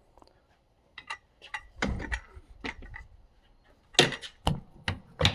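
Scattered light clicks and knocks from handling things, with a run of sharper knocks near the end.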